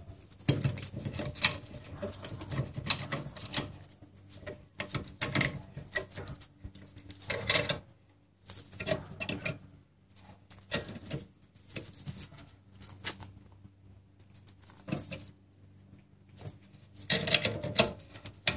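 Screw-type brake caliper piston compressor being wound by hand against a rear disc brake caliper to push the piston back. It makes irregular small metallic clicks and scrapes from the turning threaded rod and the tool shifting on the caliper, with a quieter stretch past the middle and another cluster near the end.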